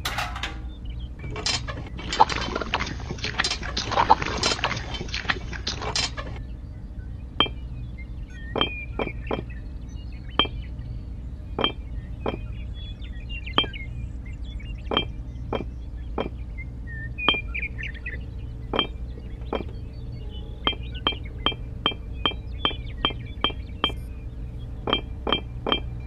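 Small hard objects clinking and tapping: a dense rattle for a few seconds, then separate clinks that come faster and evenly, about two a second, near the end, over a steady low hum.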